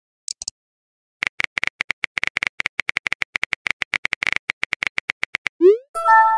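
Texting-app sound effects: rapid keyboard typing clicks for about four seconds, then a short rising swoosh as the message sends, followed by a brief chime of several steady tones. A few brief high clicks come just before the typing starts.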